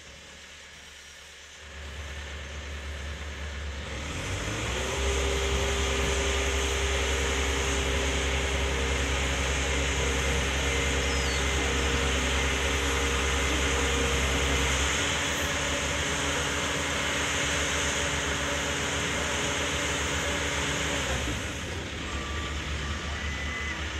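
Engine of a mobile boat lift running steadily with a humming drone, picking up about four seconds in and easing back a little past twenty seconds.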